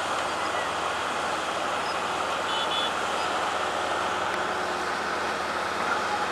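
Steady running noise of a heavy vehicle or machine, even throughout with no distinct knocks or changes.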